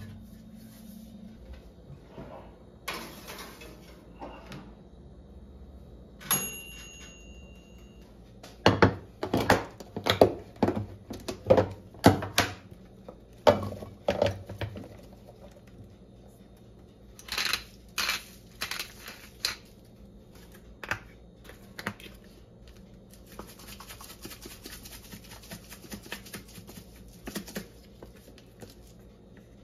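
Kitchen handling sounds: about six seconds in, a knock with a metallic ring that hangs on briefly, then a run of sharp knocks and clatters as plastic food containers and a plate are handled and chopped lettuce is tipped onto the plate. Near the end comes a few seconds of gritty rasping as a seasoning shaker is worked over the salad.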